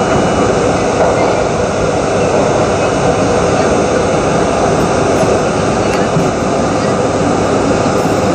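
R32 subway train running through a tunnel, heard from inside the front car: a steady, loud noise of wheels on rails and running gear.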